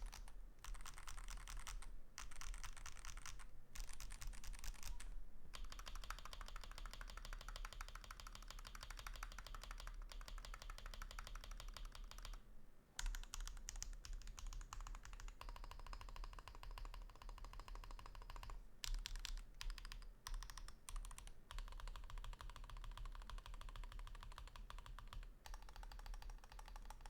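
Fast continuous typing on a custom mechanical keyboard: a Holy60 aluminium case with a polycarbonate plate, Taishan HE magnetic switches and GMK doubleshot ABS keycaps, in rapid runs of key clicks broken by brief pauses.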